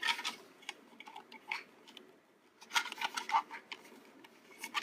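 Light plastic clicks and knocks of a toy bulldozer being handled as its blade is worked up and down, coming in small bunches with a short quiet gap about two seconds in.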